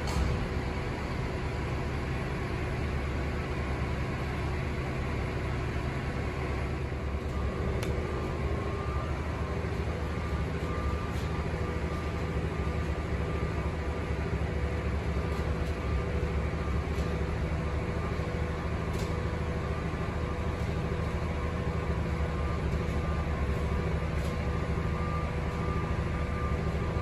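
Steady machinery hum with a few held whining tones over it and a couple of faint clicks.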